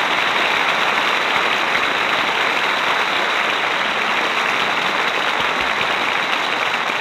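Studio audience applauding steadily at the end of an act of a live radio play, heard on an old, muffled broadcast recording.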